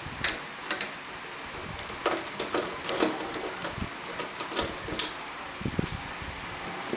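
Scattered clicks, knocks and scraping as a hard disk drive is unfastened and pulled out of a desktop computer case.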